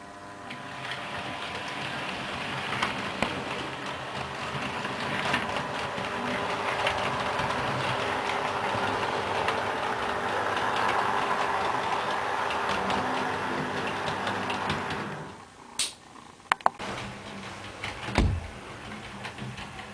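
Model railway train running along the track, a steady whirring rumble with many small clicks, cutting off about three-quarters of the way through. A few sharp clicks and a dull thump follow.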